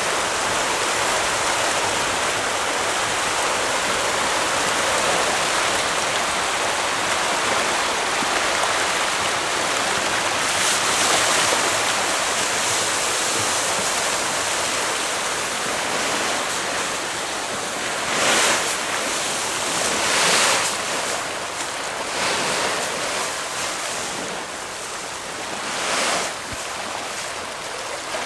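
A dense mass of tra catfish (pangasius) thrashing and splashing at the pond surface in a feeding frenzy as pelleted feed pours from sacks into the water: a steady rushing splash with a few brief louder surges in the second half.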